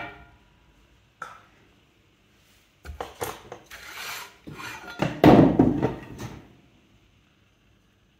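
Handling a heavy clay bowl and its wooden bat on a metal pottery wheel head. There is a sharp knock at the start, then rubbing and scraping as loose clay crumbs are wiped off the board, with a heavy knock just after five seconds as a board is set down on the wheel head.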